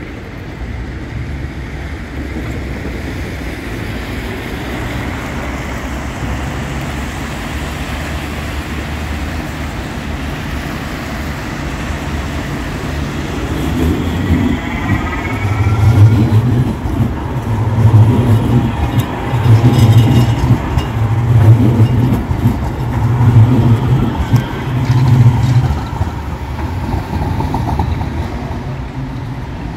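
Steady street traffic noise, then a red KVB tram passing close by on the rails. It gives a short rising whine and then a run of loud low rumbling pulses, about one every two seconds.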